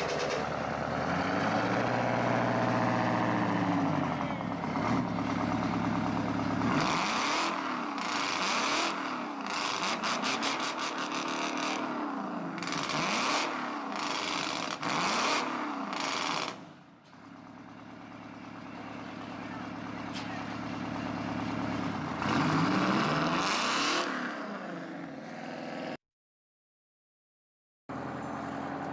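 Loud hot rod engine with open exhaust, revved again and again, its pitch rising and falling with each blip. After a brief dip it builds up and revs again, then cuts to silence about three seconds before the end.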